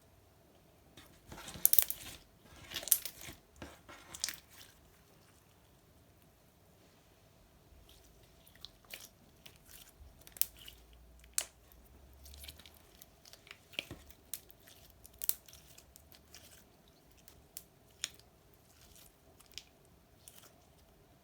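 Clear slime being worked by hand as makeup is mixed in. A dense run of crackling pops comes about two to four seconds in, followed by scattered sharp clicks and pops.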